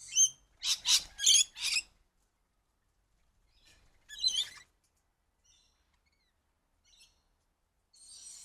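Rainbow lorikeets calling: a quick run of about four high-pitched calls around a second in, another call at about four seconds, and fainter calls near the end.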